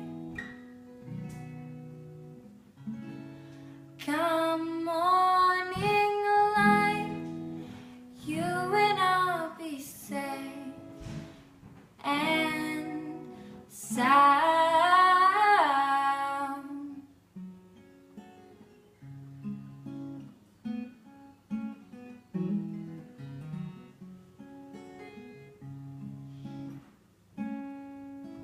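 Acoustic guitar picked under a girl's sung phrases, which end about two thirds of the way in; the guitar then plays on alone as the song's outro.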